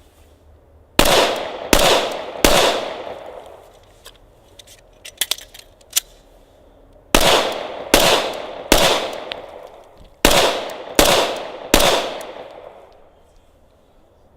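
Glock 21 Gen 4 pistol firing .45 ACP: nine shots in three strings of three, each string with shots under a second apart, every shot ringing out afterward. A few faint clicks between the first and second strings.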